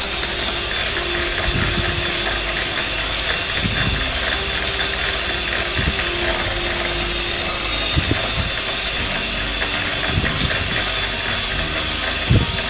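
Anex electric hand mixer running steadily, its beaters whipping cookie batter in a glass bowl until fluffy, with a few low knocks as the beaters touch the bowl.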